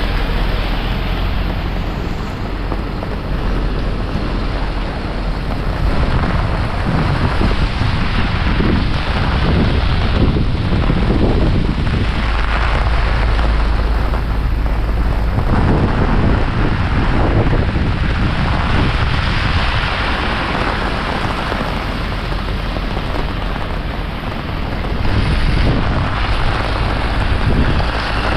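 Heavy rain falling steadily and loudly, with gusts of wind buffeting the microphone in uneven low surges.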